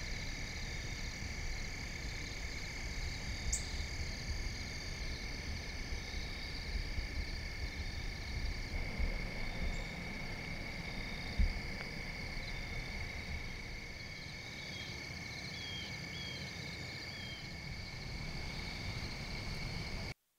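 Evening chorus of crickets and other insects trilling steadily at several high pitches, over a low rumble, with a few short chirps near the end and a single knock about eleven seconds in. The sound cuts off suddenly just before the end.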